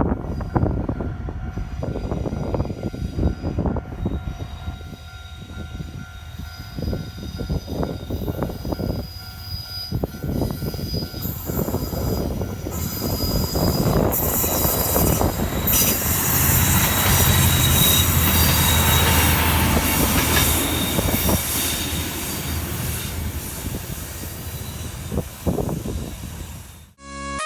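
Level crossing alarm ringing as a diesel railcar runs through the crossing. The train grows louder about halfway through, with its wheels squealing on the rails and the engine humming low.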